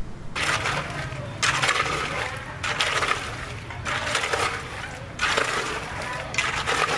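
Rhythmic gritty scraping strokes, about one every second and a quarter, over a steady low hum.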